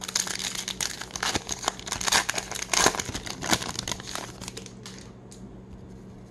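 Plastic wrapper of a 2021 Topps Heritage baseball card pack crinkling and tearing as it is ripped open by hand, dense and crackly, dying away at about four and a half seconds in once the cards are out.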